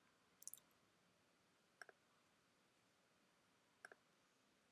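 Faint computer mouse clicks, three of them spaced about one and a half to two seconds apart, each a quick pair of ticks.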